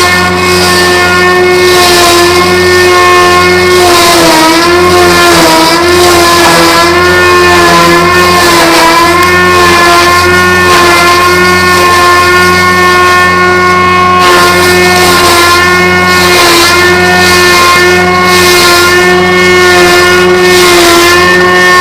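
Homemade log-rounding machine running, its cutter head and motor giving a loud steady whine. The pitch sags briefly about four seconds in and a few times after as the cutter bites into the log under load.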